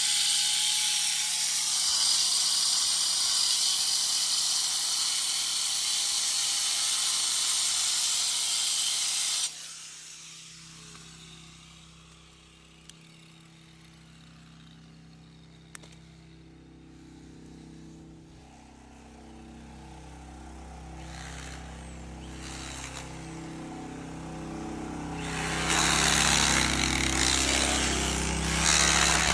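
Power tool cutting under glass pool tile to strip it from the wall, a loud steady grinding hiss that cuts off suddenly about a third of the way in. A lower steady machine hum follows and slowly grows louder, and the cutting starts again near the end.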